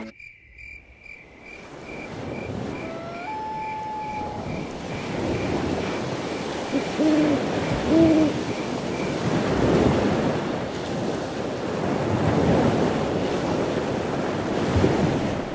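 Surf-like rushing noise that swells and ebbs. A faint high beep pulses about two or three times a second through the first half, and two short low hoots come a little past the middle.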